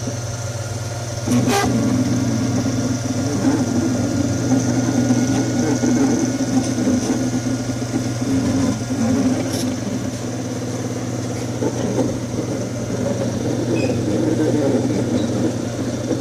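Makerbot Cupcake 3D printer's stepper motors running: a steady hum with a whir that keeps shifting, and a sharp click about a second and a half in.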